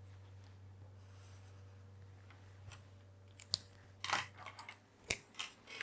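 Felt-tip pens handled at a desk. A faint scratch of the pen on paper early on, then a sharp plastic click about three and a half seconds in and a cluster of clicks and rattles over the last two seconds as one pen is put down and another picked up. A steady low hum underneath.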